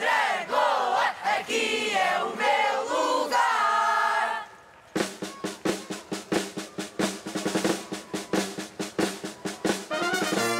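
A chorus of marchers singing and calling out together, then a brief pause, after which a march band's snare and bass drums beat a fast, steady rhythm. Brass comes in near the end.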